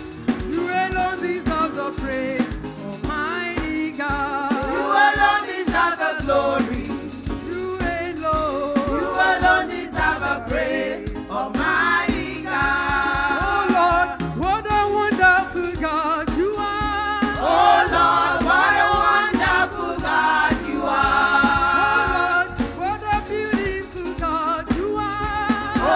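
Gospel worship music: voices singing over band accompaniment, with rattling hand percussion.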